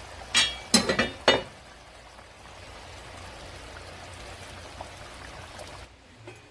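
A few sharp clinks and knocks of a cast-iron pot and its lid in the first second and a half, then the steady bubbling hiss of rice porridge simmering in the pot, which cuts off abruptly near the end.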